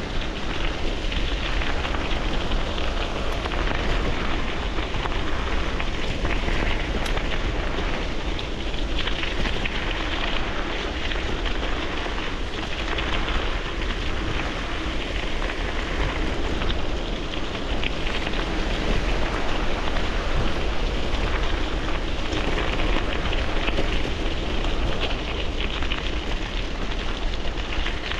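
Bicycle tyres rolling over loose gravel on a downhill run, a steady dense crackle, with wind rumbling on the handlebar camera's microphone.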